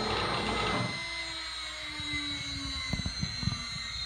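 CNC router spindle running with a steady high whine as it engraves halftone lines. The heavier cutting noise drops away about a second in, leaving the whine and a lower hum that slowly falls in pitch, with a few light ticks near the end.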